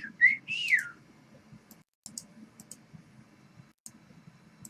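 A person whistling a few short notes in the first second, the last one sliding up and then down. Scattered quick clicks follow, typical of a computer mouse and keyboard being used.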